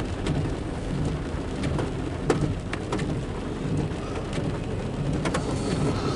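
Rain and road noise inside a moving car: a steady low rumble and hiss, with scattered sharp ticks from drops and the windshield wipers.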